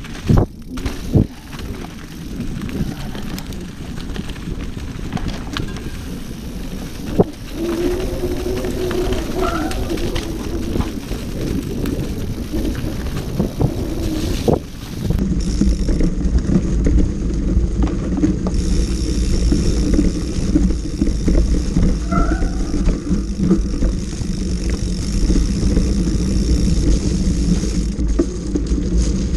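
Mountain bike ridden fast along a leaf-covered dirt singletrack: tyres rolling and crunching over leaves and roots, with the bike knocking and rattling over bumps. About halfway through the sound becomes a louder, steadier rumble heard close to the front wheel.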